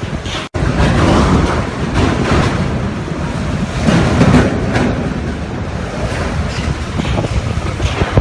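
Typhoon wind and heavy surf, the wind rumbling on the microphone, with a brief dropout about half a second in.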